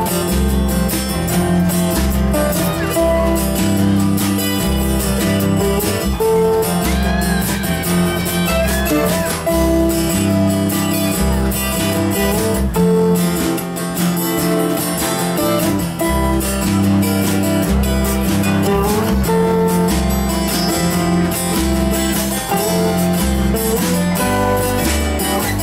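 A live acoustic band playing a light jazz instrumental: strummed acoustic guitars with a resonator guitar, over a low line of notes that changes every second or so.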